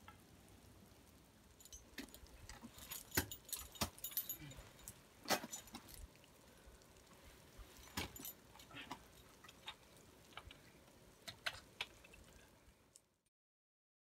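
Metal climbing hardware clinking, carabiners and gear on a climber's harness, in faint irregular clicks and jingles. The sound cuts off abruptly near the end.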